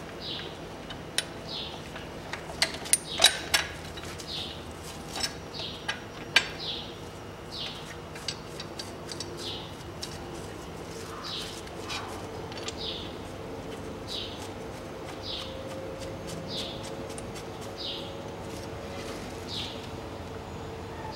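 A bird calling over and over, a short falling chirp about once a second. Sharp metallic clinks of the bracket and bolts being handled come in the first few seconds; the loudest of them fall around three seconds in.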